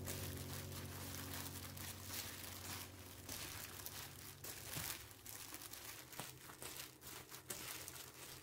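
A hand in a disposable plastic glove tossing seasoned spring cabbage leaves in a stainless steel bowl: the glove crinkles and the wet leaves rustle in quick, irregular strokes.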